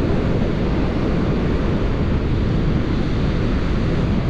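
Strong wind blowing across the microphone: a steady, heavy low rumble with hiss above it.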